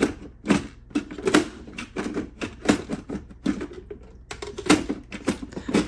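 A quick, uneven run of hard clicks and knocks, about three a second, like a typewriter, with no speech.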